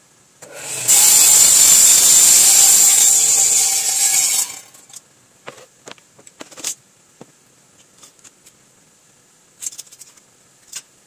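Table saw's circular blade cutting through a wooden board: a loud, even rasp lasting about four seconds that stops suddenly. After it come a few light knocks as the cut pieces are handled on the saw table.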